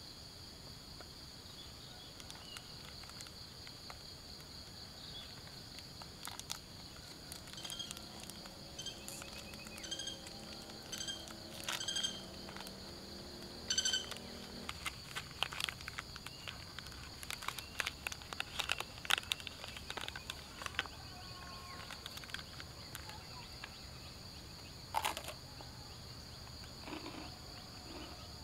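Steady high-pitched drone of crickets and other insects, with short repeated chirps about once a second for a few seconds. Crinkling and clicking of a plastic sachet being torn open and handled fills the middle stretch.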